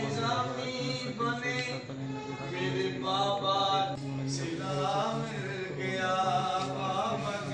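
A voice chanting in long, wavering held phrases, with a steady low hum underneath.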